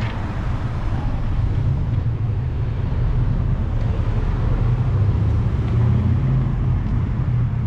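City street traffic: a steady low engine rumble from passing or idling vehicles, getting a little louder in the second half.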